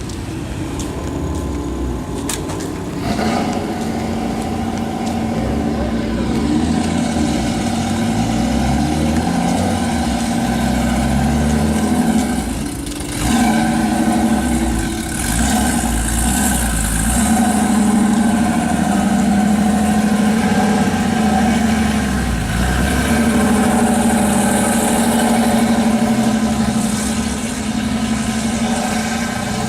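Car engines running as cars drive off, idling and revving, with the engine note rising and falling and a brief dip in loudness about halfway through.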